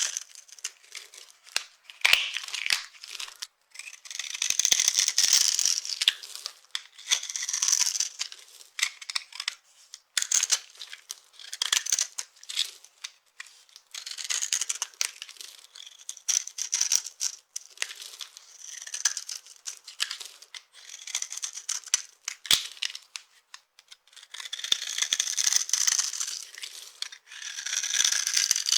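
Dry soap crunching and crackling in repeated bursts, about one every second or two, with sharp little clicks between them.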